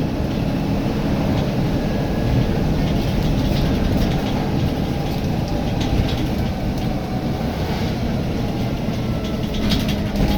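Volvo B9TL double-decker bus running, heard from inside the passenger saloon: a steady, loud low drone of diesel engine and road noise, with a few faint clicks and rattles near the end.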